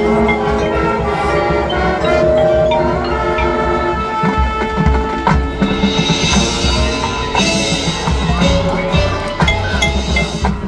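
High school marching band playing its field show, with mallet percussion ringing over held chords. The low end fills out about four seconds in.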